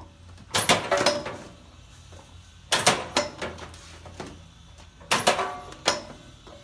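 Hand-operated sugarcane mini-billet cutter chopping cane: three strokes about two and a half seconds apart, each a quick cluster of sharp clacks with a brief metallic ring.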